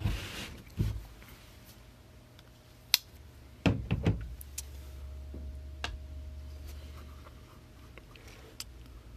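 Trading cards and their packaging being handled on a table: a brief rustle at the start, then scattered sharp clicks and taps, with a cluster of knocks about four seconds in.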